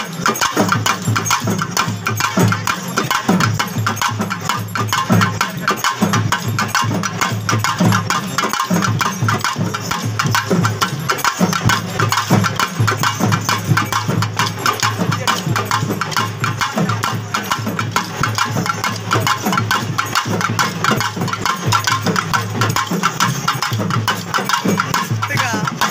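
Pambai drums beaten with sticks in a fast, steady folk rhythm, with the sharp clicks of kolattam dance sticks struck together in time.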